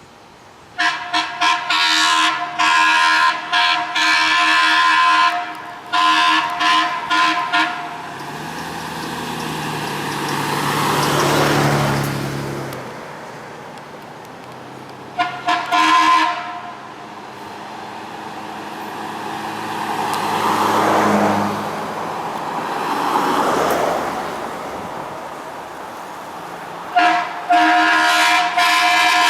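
Vehicle air horn honked in groups of short toots and longer held blasts, near the start, briefly in the middle and again near the end. Between the blasts, passing traffic noise swells and fades.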